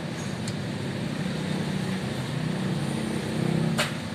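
A motor vehicle engine running with a steady low hum that grows louder near the end. A single sharp click comes just before the end.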